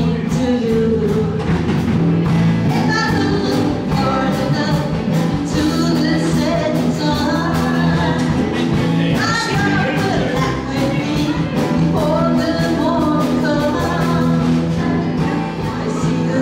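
A small live band playing a song with singing, an electric bass guitar holding low notes under a steady beat.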